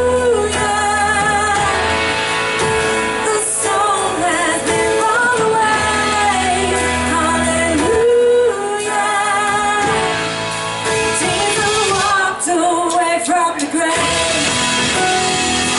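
Church worship band playing a worship song with a singer leading, the sung lines holding long, wavering notes over the accompaniment. The low bass drops out about two seconds in and comes back near the end.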